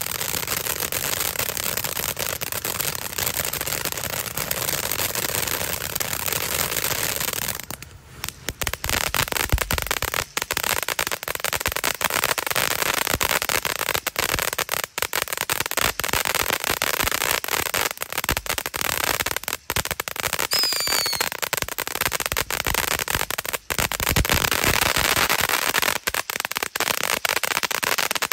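Ground fountain firework spraying sparks with a dense, fast crackle. It drops off briefly about eight seconds in, then picks up again with sharper pops and spark bursts. A short falling whistle comes about twenty seconds in.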